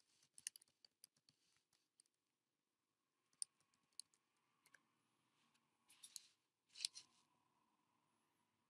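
Faint computer-keyboard keystrokes as a login and password are typed: a quick run of taps over the first couple of seconds, then a few isolated taps, with two slightly louder clicks about six and seven seconds in.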